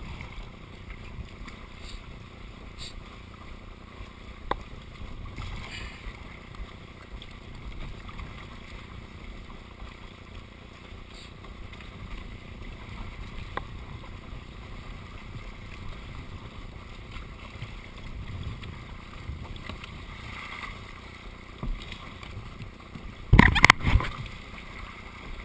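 Sea water swishing and lapping against a plastic sit-on-top kayak as it is paddled, with a few light knocks of the paddle. Near the end comes a loud splash with a couple of hard knocks against the hull.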